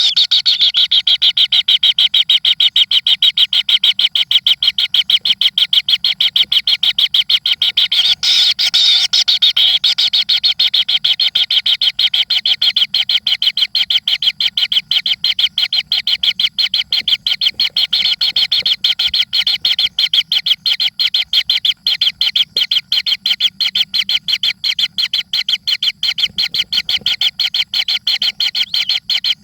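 Nestling birds begging with a rapid, continuous string of high-pitched calls, several a second.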